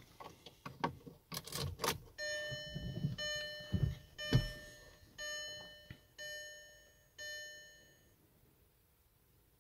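A few clicks and handling knocks, then the car's electronic warning chime ringing about six times, once a second, each tone fading quickly, stopping a second or so before the end.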